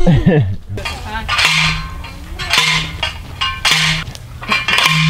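Manual post driver pounding a steel T-post into the ground: four metal clanks about a second apart, each ringing briefly.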